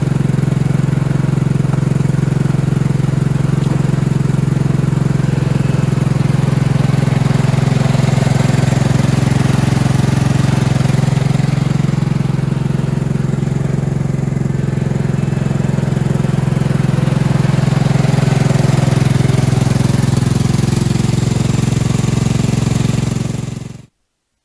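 Lawn tractor's engine running steadily as the tractor drives over ice on tires studded with self-tapping screws. The sound cuts off abruptly near the end.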